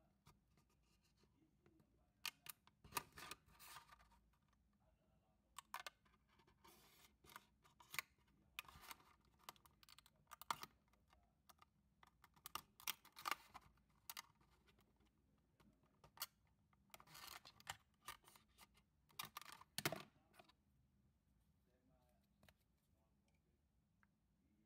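Hobby knife blade cutting through a thin clear plastic blister pack: irregular short scratches and crackles of the plastic, in clusters, stopping a few seconds before the end.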